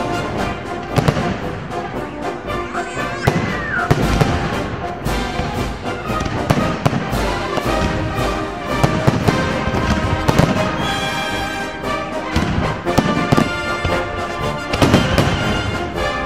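Fireworks display: aerial shells bursting in many sharp bangs at irregular intervals, over music.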